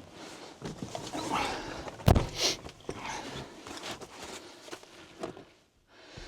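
Irregular rustling and clattering handling noises, with one sharp knock about two seconds in.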